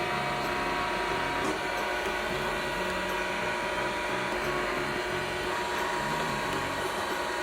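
Battery-powered toy vacuum cleaner's small motor running steadily with a thin whine.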